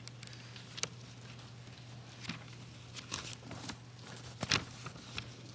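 Soft rustles and scattered light clicks of paper pages being handled at a microphoned lectern, the loudest about four and a half seconds in, over a steady low electrical hum.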